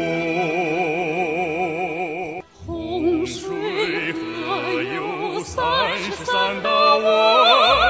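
Operatic-style singing with accompaniment. A male voice holds a long vibrato note that ends about two and a half seconds in. After a short break, a female singer starts the next sung line, also with vibrato.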